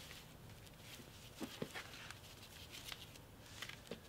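Faint rustling and a few soft, scattered clicks from a knee pad being pulled on and handled, over a quiet background.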